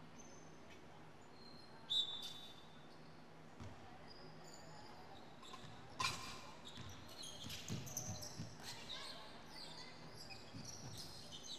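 Basketball game play on a hardwood gym floor: the ball bouncing in dull thumps and sneakers squeaking in short high chirps, echoing in a large gym. Sharp knocks come about two seconds in and again about six seconds in, and the thumps and squeaks come thickest from then on.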